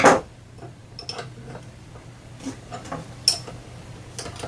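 Small metal clicks and taps from pliers working at the end of the mini mill's X-axis leadscrew. A sharp knock comes right at the start, then irregular light ticks, with one brighter metallic click about three seconds in, over a steady low hum.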